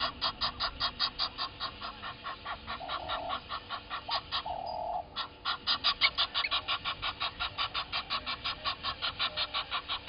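A bird calling in a fast, even run of short clucking notes, about six a second, with a brief break about four seconds in before the run carries on. A shorter, lower call sounds twice around the break.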